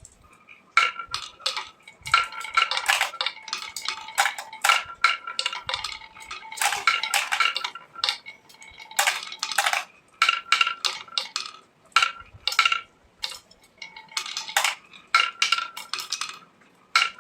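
Small hard objects clinking and clattering together in quick runs of clicks, each with a short metallic ring, coming in bursts with brief pauses between them.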